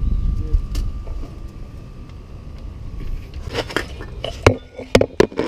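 Low wind rumble on an outdoor action-camera microphone, then, about three and a half seconds in, a run of sharp clicks and knocks with the loudest one about a second later: handling noise as the camera is moved under the car.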